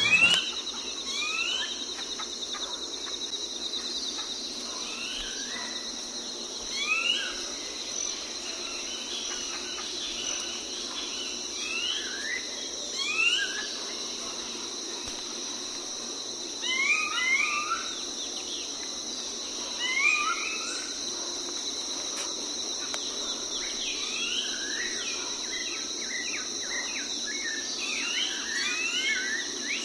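Outdoor insect chorus trilling steadily at a high pitch, with bursts of short rising bird chirps every few seconds, thickening near the end. A single sharp knock sounds right at the start.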